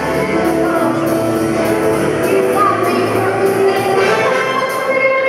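Live jazz band playing, with a woman singing into a microphone over keyboard, drum kit and horns; a light cymbal beat ticks steadily about twice a second.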